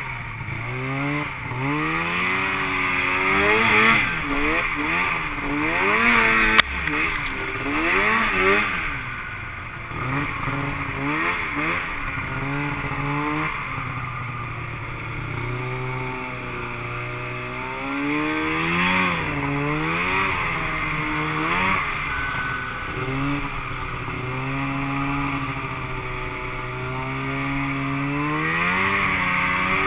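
2006 Arctic Cat Crossfire 700 snowmobile's two-stroke twin engine, revving up and falling back over and over as the throttle is worked, with a steady rushing noise underneath.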